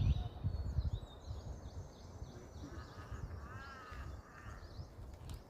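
Morning bird calls: small birds chirping high and thin throughout, with a run of harsh, crow-like caws from about three seconds in. Low gusts of wind rumble on the microphone near the start.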